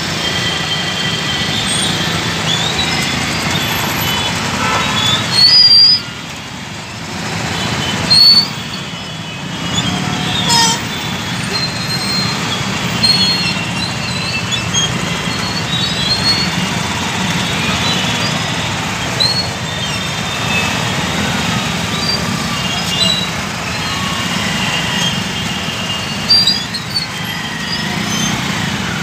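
Stop-and-go urban traffic jam: motorbike and car engines running steadily, with short horn toots scattered throughout. Two brief loud bursts stand out, about six and eight seconds in.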